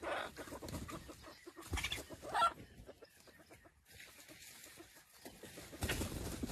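Chickens clucking: a few short, separate calls, one rising in pitch about two seconds in, with a quieter pause in the middle.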